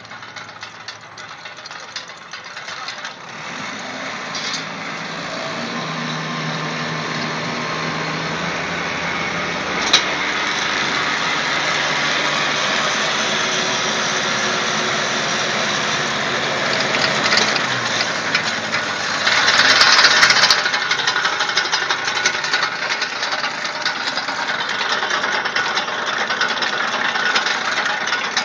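Tractor engine running steadily while driving a rear-mounted twin post-hole auger through its gearbox, with a mechanical rattle, as the augers bore into the soil. The sound grows louder over the first several seconds, with one sharp click about ten seconds in and a brief rush of louder noise about two-thirds of the way through.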